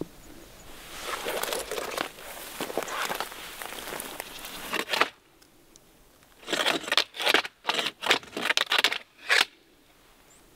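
Crinkling, rustling noise: about four seconds of dense crackling, then, after a short lull, a string of about eight short separate rustles.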